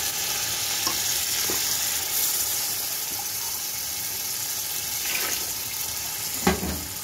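Keema-and-potato masala sizzling in a steel pot with water just poured in: a steady hiss. There is a knock near the end.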